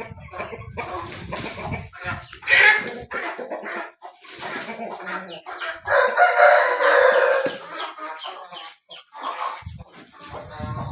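Aseel rooster crowing once, a long held call about halfway through, among short clucks and calls from the flock, with one short loud squawk a couple of seconds in.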